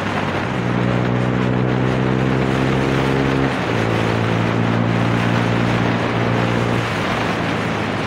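TVS Raider 125's single-cylinder engine running through an aftermarket exhaust while being ridden. Its steady note steps to a new pitch about halfway through and again near the end, with wind rushing over it.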